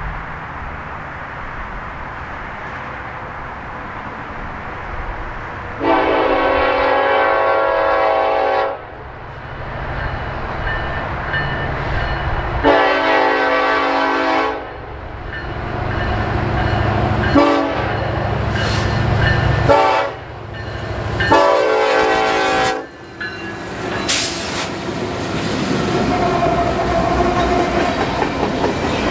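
Freight locomotive's air horn sounding the grade-crossing signal, two long blasts, a short one and a long one, as the train approaches. After the horn, the train runs past with a steady rumble of wheels on the rails.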